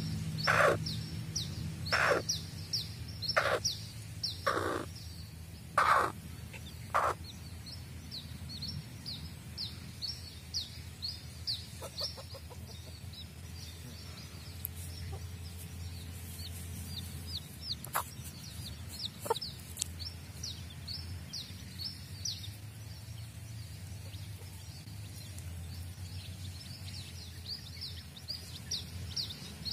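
Chicks peeping almost nonstop, a quick run of short high notes that slide downward, while a hen gives a handful of louder clucks in the first seven seconds or so.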